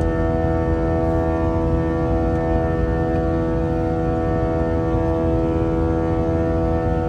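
An Airbus A321's IAE V2500 turbofan engines heard from inside the cabin: a steady drone over a low rumble, with a chord of many steady tones that neither rise nor fall.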